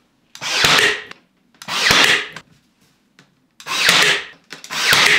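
Cordless battery-powered brad nailer firing four times into wood molding. Each shot is a sharp crack inside a brief whir from the tool's motor, spread over about five seconds.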